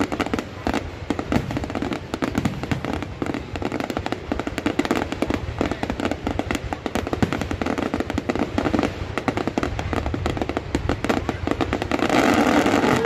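Fireworks going off in a dense, continuous crackle of many rapid small bangs and pops, getting louder about twelve seconds in.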